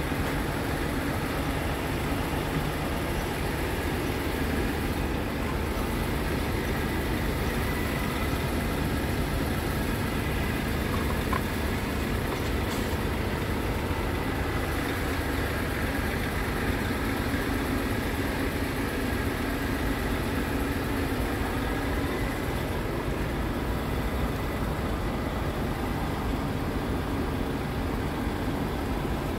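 Scania P340's five-cylinder diesel engine idling steadily, heard close up from the open engine bay with the cab tilted forward.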